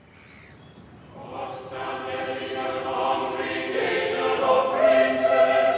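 A choir singing sustained notes in several parts, fading in about a second in and swelling steadily louder.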